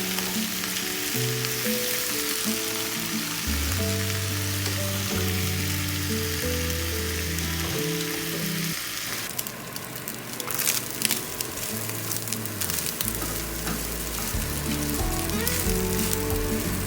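Mixed vegetables sizzling steadily in hot oil in a frying pan. About nine seconds in the hiss thins and turns into scattered sharp crackles and clacks, as of stirring in the pan.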